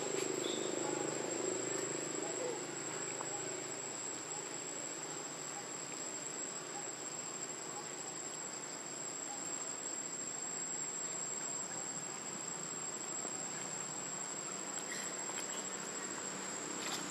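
A steady, high-pitched insect drone over a soft background hiss.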